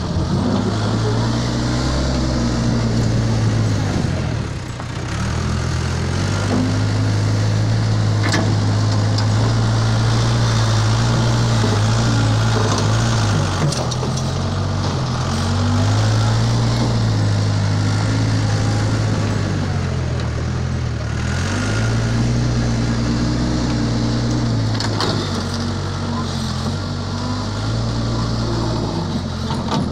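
Case 580 Super H backhoe loader's diesel engine working under load, its revs dipping and picking up again three times as the machine pushes and shifts.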